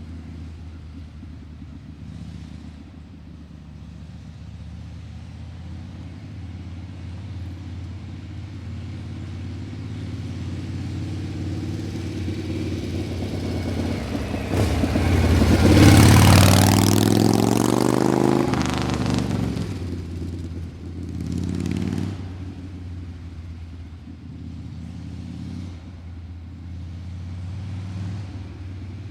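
Steady low motor-vehicle engine drone. About halfway through, a vehicle passes close by: it grows louder to a peak, then its pitch falls as it moves away.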